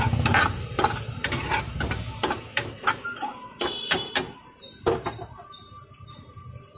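Steel ladle knocking and scraping against a small frying pan as chopped vegetables are stirred while they fry: a dozen or so irregular sharp clinks. Under them runs a steady low hum that fades about five seconds in.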